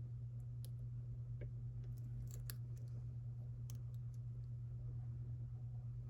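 Faint, irregular metallic clicks and ticks of a pick working inside an EVVA EPS dimple lock with sliders, a small cluster about two seconds in. Under them runs a steady low electrical hum.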